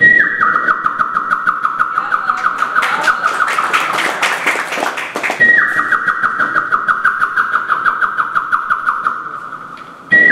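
A man imitating a bird with whistled trills into a microphone. Each long phrase starts on a high note, drops, then warbles steadily at about five pulses a second, with a rougher, noisier passage in the middle.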